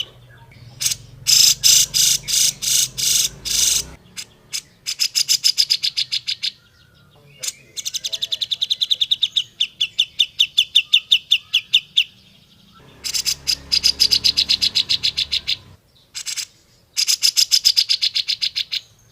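Grey-cheeked bulbul (cucak jenggot) calling: runs of sharp, rapidly repeated chattering notes, each run lasting a few seconds, with short pauses between.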